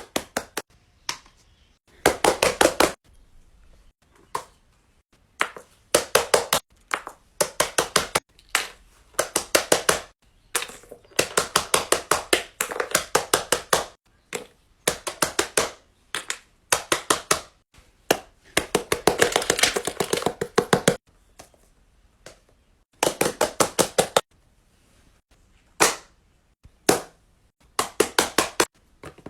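Quick taps or clicks in rapid runs, several a second, each run lasting about one to three seconds with short pauses between.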